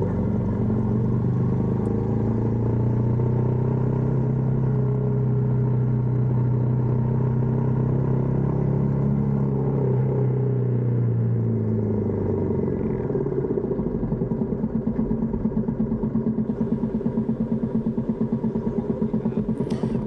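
Small motorbike engine running at road speed, a steady drone that swells slightly and then falls away. About two thirds of the way through it drops to an even, pulsing idle as the bike slows to a stop.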